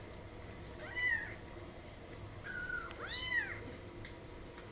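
Four-week-old kittens mewing: three short, high mews that arch up and down in pitch, the last one the longest and loudest.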